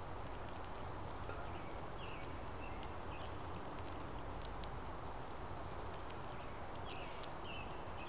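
Backyard ambience with a steady hiss and small birds calling: a rapid high trill about five seconds in and several short chirps scattered through. A few faint clicks are heard.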